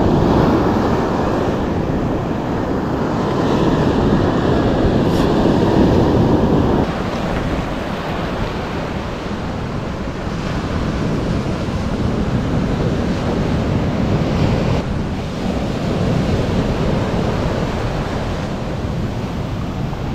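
Ocean surf breaking and washing on a beach: a steady rushing noise that swells and eases, dropping suddenly about seven seconds in.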